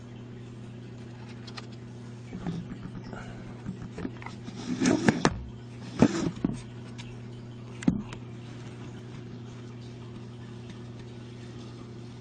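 A handful of knocks and clatters about halfway through, three of them sharp and loud, over a steady low hum.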